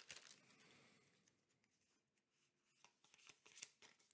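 Near silence, with a cluster of faint soft ticks and rubs of MetaZoo trading cards being handled about three seconds in.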